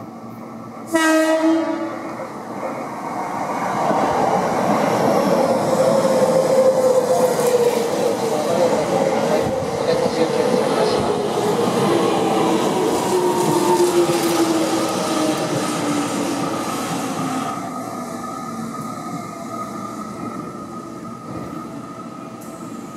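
Seibu 30000-series electric train sounds its horn in one short blast about a second in, then passes close by with rail noise and a motor whine that falls slowly in pitch as it slows. Near the end its running grows quieter as it draws into the station.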